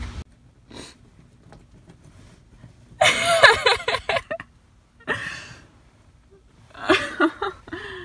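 Snow brush sweeping snow off the car's windows, heard from inside the car: three scraping strokes with squeaky bristles on glass, the first and longest about three seconds in, a shorter one around five seconds and another near the end.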